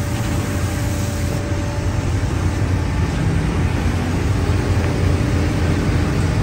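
Steady low rumble of woodworking factory machinery running, with a faint high whine that fades out about two seconds in.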